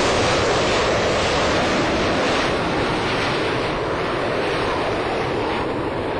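The F-35 Lightning II fighter jet's Pratt & Whitney F135 engine is making a steady rushing noise. The sound turns duller and slightly quieter from about halfway through.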